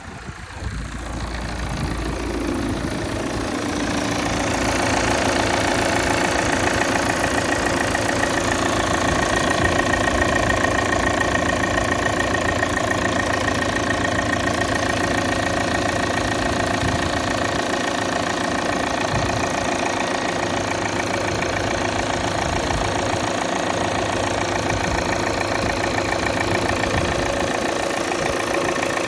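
2017 Volvo XC90 D5 four-cylinder twin-turbo diesel idling just after a cold start, with diesel clatter and a steady buzzing whine over it. The owner does not know the cause of the buzz. The sound grows louder over the first few seconds, then holds steady.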